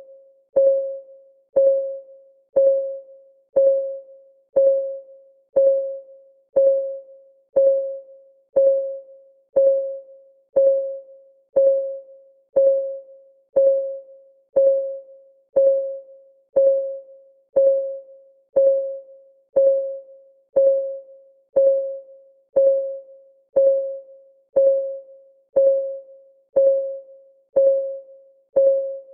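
Timer clock ticking sound: a short, pitched tick once a second, evenly spaced, each dying away quickly.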